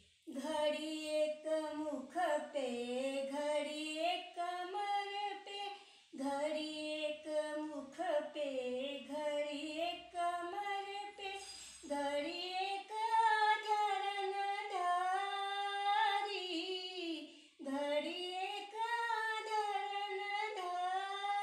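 A woman singing a devotional bhajan solo and unaccompanied, in long phrases with short breath pauses about every five to six seconds.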